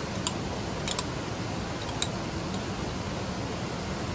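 Steady rushing of a waterfall, with a few light clicks and taps from a metal spoon, a squeeze bottle and a small camping pot as mayonnaise is squeezed onto food.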